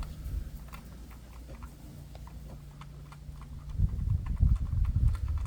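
Light clicks and knocks of hands working on the engine's coil-pack bolts and parts, over a low rumble that grows louder and choppier near the end.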